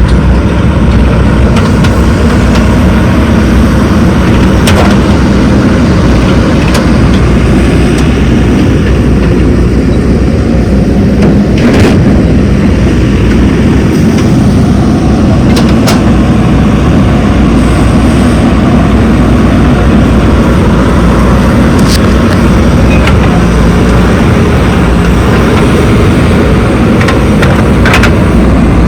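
Diesel engines of a backhoe loader and tractors running steadily at work, with a few brief knocks.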